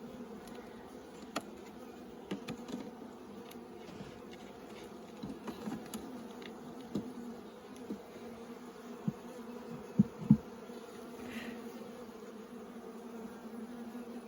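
Honeybees humming steadily around an open hive, with single bees buzzing close by now and then, the loudest twice about ten seconds in. A few light clicks are heard.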